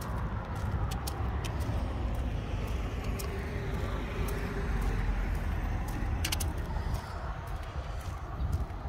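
Road traffic on a busy street: a steady low rumble with cars swishing past, the tyre noise swelling and fading every few seconds. A few light clicks and ticks sound over it.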